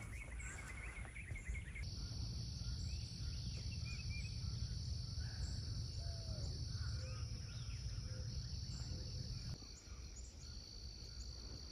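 Faint outdoor ambience: a steady, high insect chorus comes in about two seconds in, with scattered short bird chirps over a low rumble.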